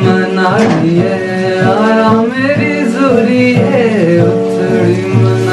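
A man singing a melody while strumming an acoustic guitar.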